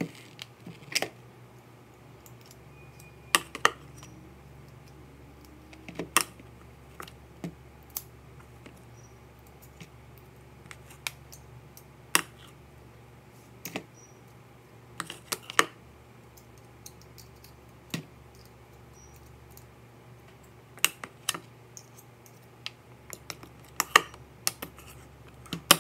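Utensils knocking and clicking against a mixing bowl as butter is worked in it: scattered sharp clicks every second or so, over a faint steady low hum.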